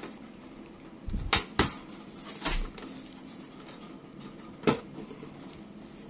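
Metal tin case handled on a table: a few sharp clicks and soft thumps, the loudest about a second and a half in, with another about three quarters of the way through.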